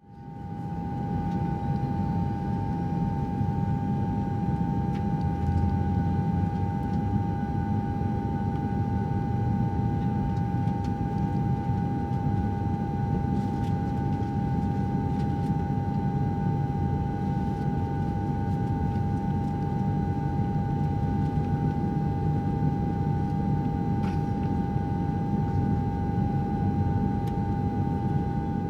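Airliner cabin noise in flight: a steady low rumble of engines and airflow with a constant whine, and a few faint clicks.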